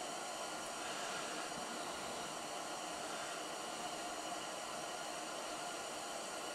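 Steady, even hiss from a propane tank-top heater burning, with no other sound standing out.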